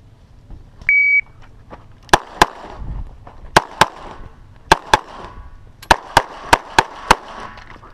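An electronic shot timer beeps once, about a second in. Then a CZ 75 SP-01 9mm pistol fires about eleven loud shots, mostly in quick pairs with short pauses between the pairs.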